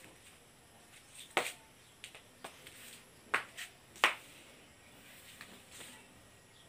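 A handful of sharp, short clicks and slaps, about six of them unevenly spaced across two and a half seconds, the loudest near the four-second mark.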